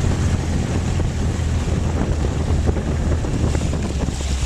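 Motorized outrigger boat running through choppy water: a steady low engine drone under wind buffeting the microphone and the splash of waves and spray off the bow.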